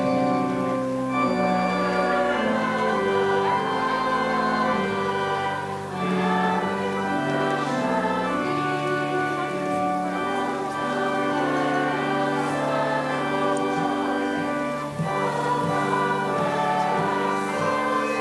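Children's choir singing with instrumental accompaniment, steady and continuous.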